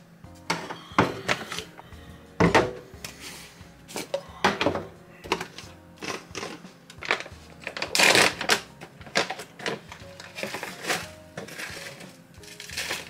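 Plastic containers handled on a counter: the clicks and knocks of a shaker bottle, its cap and a plastic tub, with a crinkling rustle of a foil pouch as protein powder is poured, over quiet background music.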